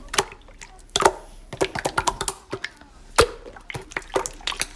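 Slime being squished and poked by hand, giving an irregular run of sharp, wet clicks and pops.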